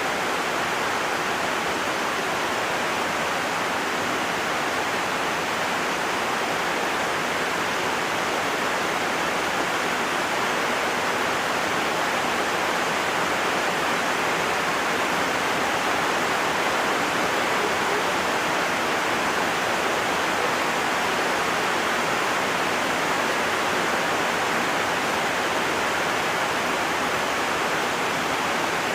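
Heavy rain falling, a steady unbroken hiss.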